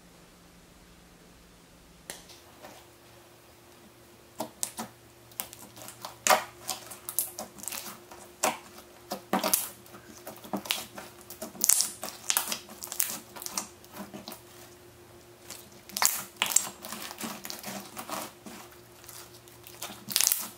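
Clear slime packed with melamine-sponge jelly cubes being pressed and kneaded by hand, giving irregular crackling clicks and pops, several a second. The pops come from the sponge cubes squeezed inside the slime rather than from the slime alone. They start a few seconds in, after a short quiet spell.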